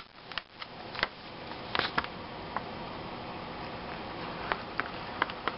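Water poured from a steel cup into a paper muffin-mix pouch, with a few light clicks and crinkles from the pouch, over a steady hiss.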